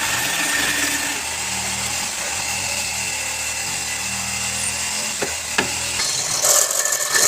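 Wood lathe running with a steady motor hum while a turning tool cuts the spinning wood. There are two sharp knocks about five seconds in, and the cutting gets louder near the end.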